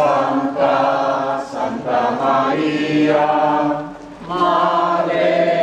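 A group of voices singing a slow Marian hymn in Spanish, holding long notes, with short breaks between phrases about two seconds and four seconds in.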